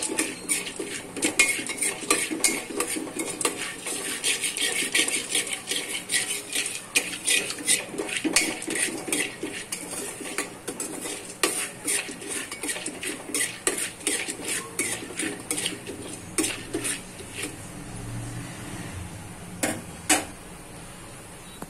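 A perforated metal spoon scraping and clinking against the inside of a pressure cooker as popcorn kernels are stirred continuously in oil, before any kernel has popped. The quick run of clicks thins out near the end, and two sharp knocks follow.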